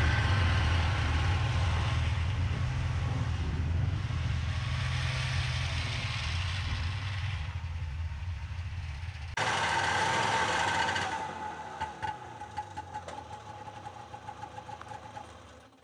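Arctic Cat Jag snowmobile's two-stroke engine running steadily under way. From about two-thirds through it falls quieter, with light clicks over the last few seconds.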